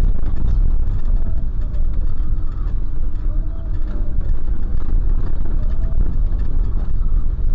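A van driving along a narrow country lane, heard from inside the cabin through a dashcam: a loud, steady low rumble of engine and tyre noise.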